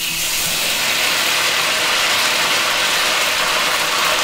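Marinated chicken drumsticks laid skin-side down into hot oil in a wok, setting off a loud sizzle that starts suddenly and stays steady.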